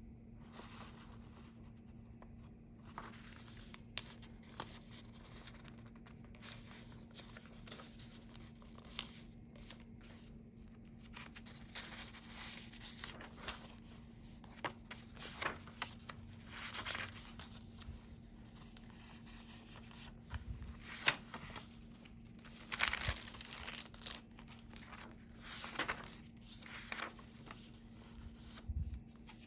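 Paper pages of a handmade junk journal rustling and flapping as they are handled and turned, with irregular soft crinkles, taps and rubs of fingers on paper.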